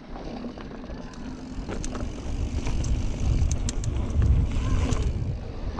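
Mountain bike rolling fast along a dirt woodland trail: tyre rumble and wind buffeting the action camera's microphone, getting louder as the bike gathers speed, with scattered clicks and rattles from the bike.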